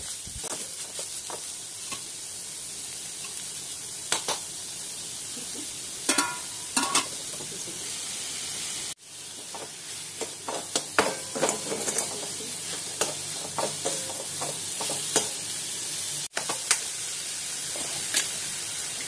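Grated cucumber and chopped tomato sautéing on high flame in a kadhai with oil and butter: a steady sizzle, with a steel spatula scraping and clicking against the pan as the mixture is stirred.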